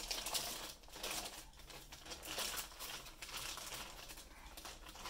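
Clear plastic bag crinkling and rustling in irregular bursts as it is pulled off a mini desktop PC.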